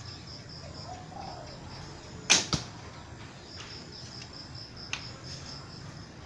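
A fiberglass recurve bow is shot. The bowstring snaps forward sharply a little over two seconds in, and a second, smaller knock follows a quarter second later as the arrow strikes the target.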